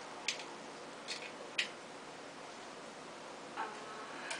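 Faint clicks and taps of a utensil and crisp puri shells on a plate as pani puri are filled: three sharp ticks in the first two seconds, over a low steady hiss.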